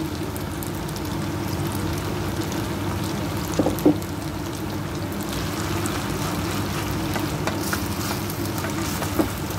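Rice noodles sizzling as they fry in a nonstick pan, over a steady low hum. There is a single knock a little before halfway. In the second half a wooden spatula stirs and scrapes the noodles.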